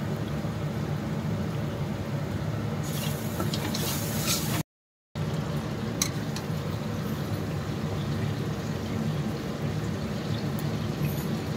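Spice masala frying in a steel kadai on a gas stove over a steady low hum, with a hissing sizzle building about three seconds in. The sound drops out for half a second, then the low hum resumes with a few light clicks.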